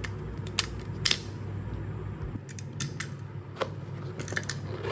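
A small product box being opened and handled: scattered light clicks and short scrapes of the lid and packaging.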